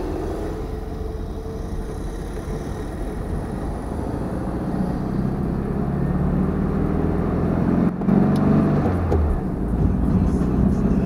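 Air-cooled flat-four engine of a classic VW Beetle, heard from inside the cabin while driving. The engine note grows louder about four seconds in, breaks off briefly about eight seconds in, then picks up again.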